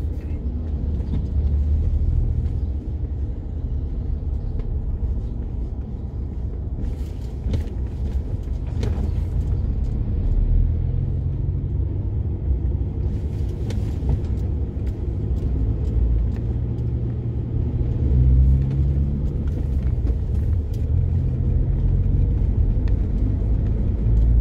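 Road and engine noise inside a moving car: a steady low rumble, with a few brief faint hisses.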